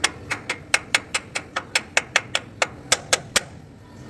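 Rapid hammer blows on a steel truck leaf spring pin, about five a second, driving it into the spring eye; they stop about three and a half seconds in.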